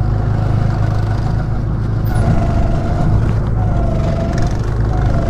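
Small petrol go-kart engines running: a steady low drone, with a higher wavering engine whine that comes and goes from about two seconds in.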